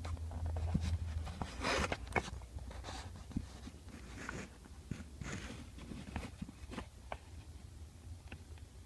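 Hands working the shift boot and console trim of a car interior: scattered plastic clicks, rustling and light scraping, busiest about two seconds in.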